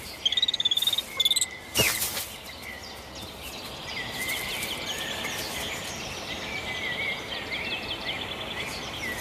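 A chorus of small birds and insects chirping, opening with a rapid high trill. A single sharp knock comes just before two seconds in, and a steady run of short, high chirps follows.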